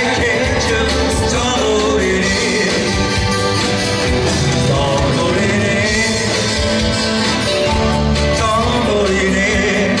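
A live pop song: a woman singing through a microphone and PA, backed by strummed acoustic guitars.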